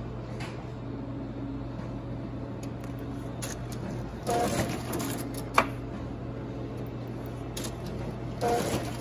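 Full-colour printer running and feeding sheets out onto its output tray: a steady hum and whir. About every four seconds comes a louder burst of paper handling, and a sharp click follows the first one.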